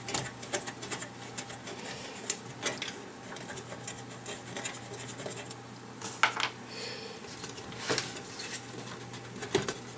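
Hands loosening a screw on the hard-drive cage of an Enermax Hoplite PC case and handling the cage: a run of small scratches and clicks of plastic and metal parts, with louder scrapes about six and eight seconds in.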